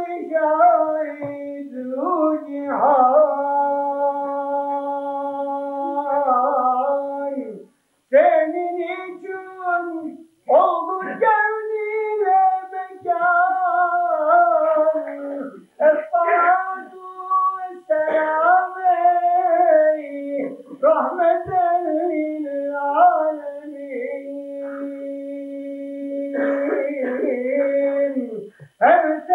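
A single unaccompanied voice singing or chanting a slow, ornamented melody in long phrases, with long held notes and short breaths between the phrases.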